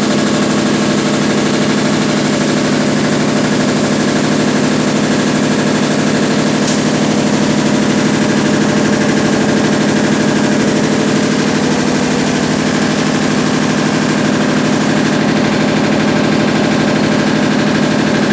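Consul Facilite 10 kg washing machine running steadily: a constant motor hum with a fast, even rattle.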